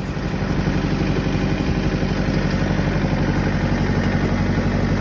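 An engine idling steadily with an even, fast low pulse, starting abruptly on a cut.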